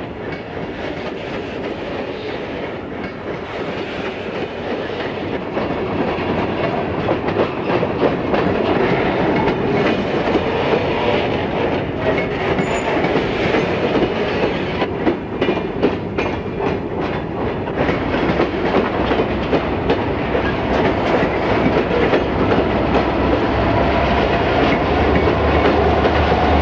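Empty coal hopper train rolling past, its wheels clacking on the rail joints and the cars rattling, growing slowly louder. Near the end the low hum of the diesel locomotives joins in as they draw near.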